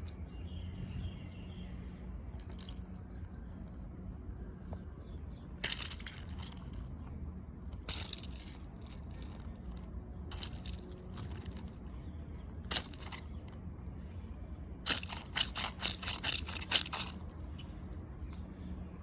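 Crunchy anti-stress dinosaur squeeze toy being squeezed, giving crisp crackling crunches in short spells, with a quick run of about ten crunches near the end.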